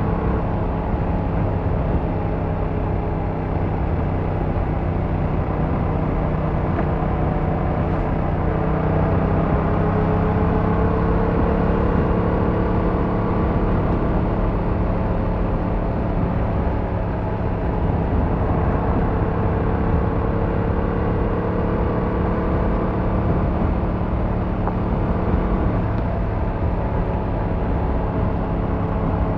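Yamaha MT-07's 689cc parallel-twin engine running steadily under way, its pitch rising and falling gently with the throttle.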